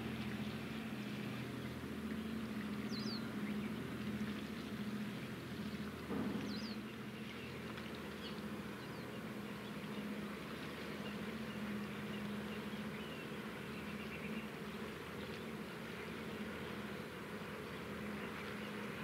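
Steady low engine drone of a vessel on the water, a pitched hum that pulses slightly, with a couple of faint high chirps about three and six seconds in.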